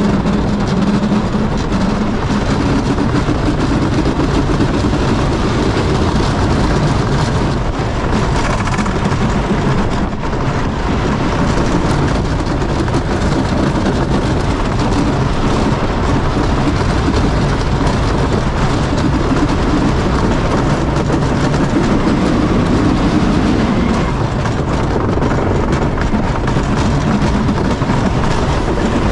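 Wooden roller coaster train running at speed over its wooden track: a steady, loud rumble and clatter of the wheels.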